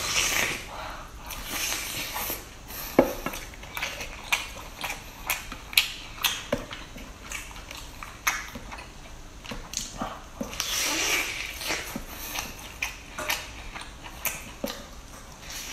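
Close-up eating sounds from a cooked lobster claw: wet slurping and sucking of the meat and sauce, with many sharp clicks of the shell and chewing. Longer slurps come near the start and about two-thirds of the way through.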